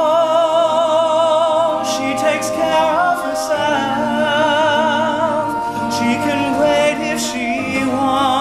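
All-male a cappella group singing sustained wordless chords, with a high solo voice holding long notes with a wide, even vibrato over them. A few short hissing consonants cut through the chords.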